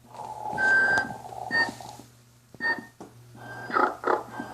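Two battery-operated animated Santa Claus figures snoring in turn: raspy snore breaths, several of them ending in a short high-pitched whistle, over a low steady hum.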